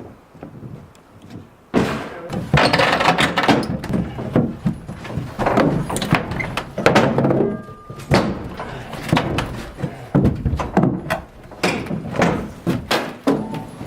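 Irregular knocks, thuds and clattering of building materials being handled while a house is dismantled by hand. It starts suddenly after a quieter second or two and goes on in uneven bursts.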